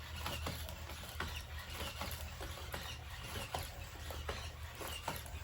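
A robot dog walking, with irregular light taps and clicks from its feet and joints, a few each second, over a steady low hum.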